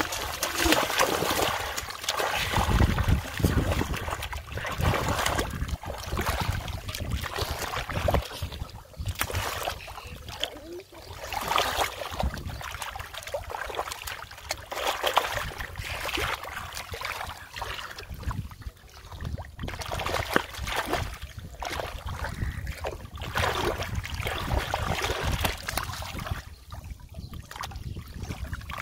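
Splashing and sloshing in shallow water in irregular bursts: a large fish thrashing in a flooded rice paddy while it is grabbed by hand.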